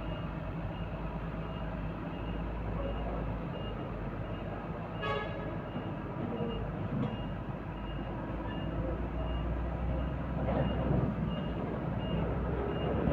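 Heavy vehicle engine running steadily, with a warning beeper sounding short beeps about twice a second. A brief ringing sound stands out about five seconds in.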